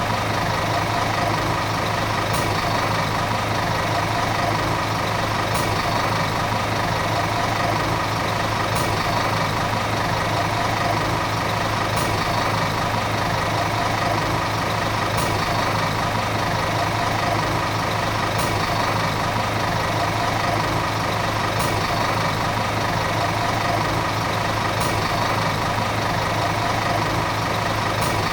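Volvo city bus diesel engine running steadily at an even speed, with no revving or change in pitch.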